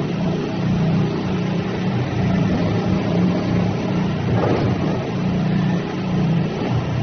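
Diesel engine of a mini skid steer loader running, its level swelling and easing a little every second or two.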